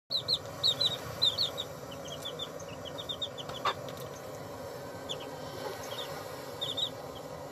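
Chicks peeping: short, high, downward chirps in quick runs of two to four, with a brief tap about three and a half seconds in.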